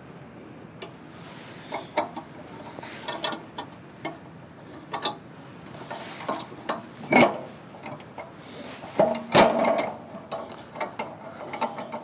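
Chainsaw-mounted TIMBERJIG being adjusted by hand, setting the cutting height: irregular metal clicks and knocks with some scraping, the loudest knocks about seven and nine seconds in.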